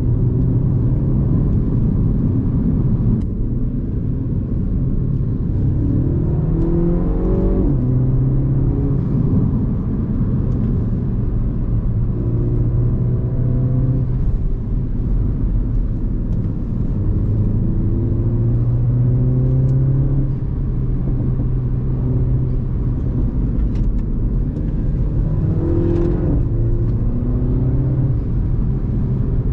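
Onboard sound of a Mini Cooper S F56's turbocharged four-cylinder engine on its stock exhaust, pulling up through the revs and shifting gear twice, once about a quarter of the way in and again near the end, with steadier running in between.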